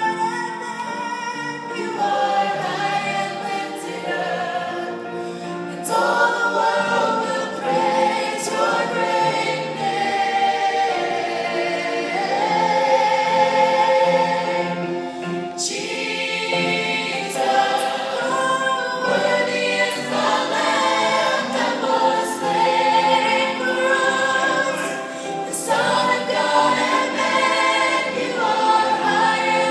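A college choir singing a gospel worship song, the voices moving together in sustained, changing chords.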